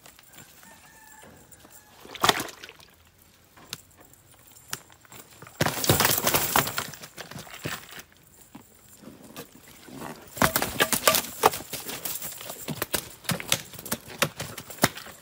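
Live fish being worked out of a nylon cast net on wooden planks: bursts of rapid knocking, slapping and rustling, once about two seconds in, again around six seconds, and a longer, busier spell from about ten seconds on.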